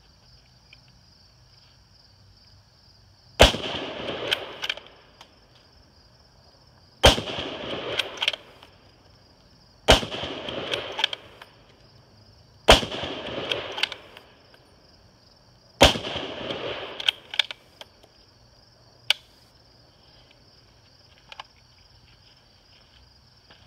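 Five shots from a Ruger Gunsite Scout bolt-action rifle in .308, about three seconds apart, each echoing and followed by the clack of the bolt being worked. Crickets shrill steadily in the background.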